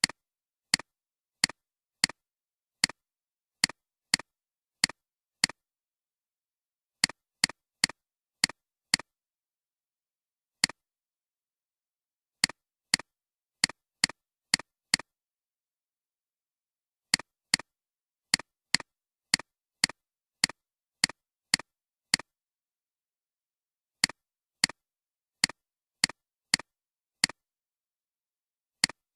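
Computer mouse clicking: single sharp clicks about one to two a second, in runs broken by pauses of a second or two, with dead silence between them.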